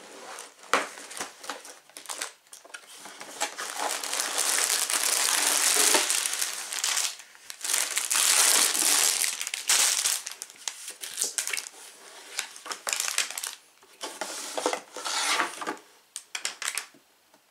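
A LEGO set's cardboard box being opened and unpacked: plastic bags of bricks crinkling and rustling, with clicks and knocks of handling, loudest in long stretches about a quarter and a half of the way through.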